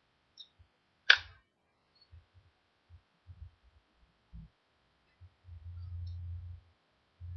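Interfish IFF50 spinning reel worked by hand: one sharp click about a second in, a few light knocks, then a low rumble in two stretches near the end.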